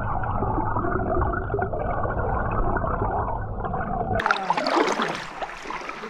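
River water heard through an underwater camera: a dull, muffled gurgling rush with a low rumble as the craft moves along. About four seconds in, the camera breaks the surface and the sound turns suddenly bright and open, with water splashing and dripping.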